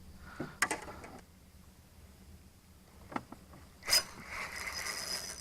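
Faint clicks and handling knocks, then, after a sharp knock near the end, a steady whirring with a thin high tone from a fishing reel being wound in while a small smallmouth bass is on the line.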